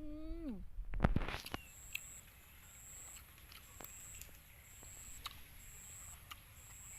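A high-pitched chirp repeating steadily about twice a second, with a few soft clicks of eating and a short hummed "mmm" at the very start.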